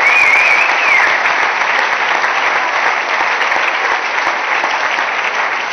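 A conference-hall audience applauding, with a high wavering tone over the clapping in the first second. The applause eases off slightly toward the end.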